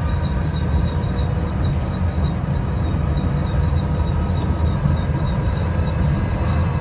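Urban Triker electric trike running, a steady low rumble with a thin, high, steady motor whine over it. The owner takes it for an abnormal noise of unknown cause.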